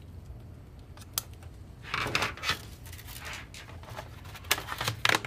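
Handling of a laptop's parts during a drive swap: a single click, a scraping rustle about two seconds in, then several sharp clicks near the end.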